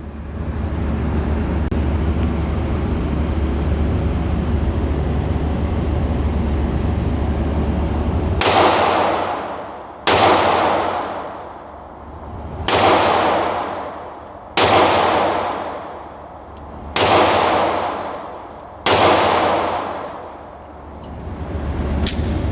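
A 9mm SIG Sauer P365 pistol firing six shots about two seconds apart, each with a long echoing tail. Before them is a steady rumbling noise.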